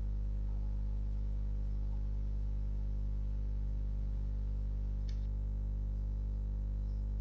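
Steady low electrical hum in the recording, with a single sharp click about five seconds in as the slide show is advanced to its end screen.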